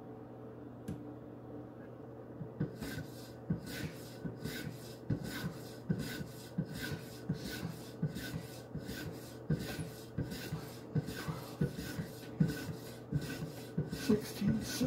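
Polymer strop loaded with 5-micron diamond being stroked along the edge of a Henckels paring knife on a guided sharpening system. The strokes come in an even rhythm of about two a second, starting about two and a half seconds in after a soft click.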